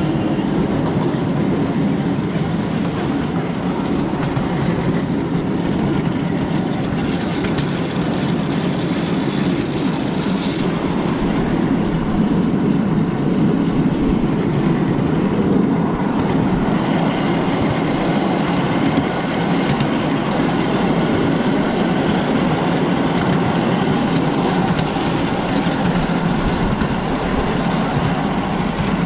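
Miniature ride-on railway train running steadily along its track, with the continuous rolling noise of its small wheels on the rails heard from aboard the passenger cars.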